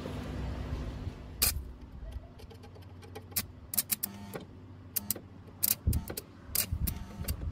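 Scattered sharp metallic clicks and taps over a low steady hum, as a 2.4 mm welding rod is clamped into a stick welder's electrode holder and the holder is handled before the arc is struck.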